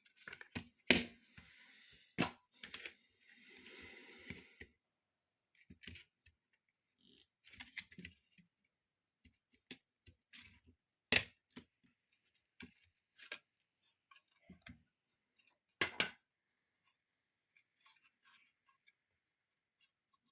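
Clicks, knocks and short scraping of a Delphi DS150 clone diagnostic interface's plastic casing and circuit board being taken apart by hand. The knocks come irregularly, the sharpest about a second in and again around eleven and sixteen seconds.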